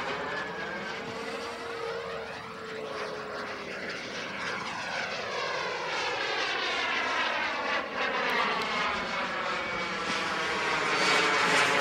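Gas turbine of a radio-controlled model Vampire jet in flight, a steady jet rush whose sound shifts as it passes overhead and grows louder near the end as it comes closer.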